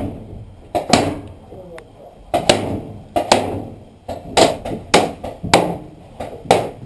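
Paintball fire in a small plywood bunker: about a dozen sharp pops, mostly in quick pairs about a second apart, each ringing briefly off the wooden walls.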